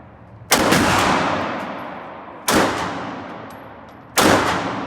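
Three gunshots, roughly two seconds apart, each sharp crack followed by a long echoing decay in the enclosed range.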